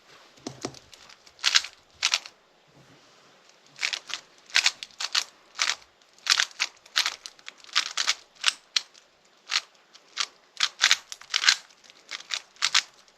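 Rubik's cube being turned by hand during a speedsolve: quick plastic clicks and clacks of the layers turning, in irregular bursts with short pauses between them.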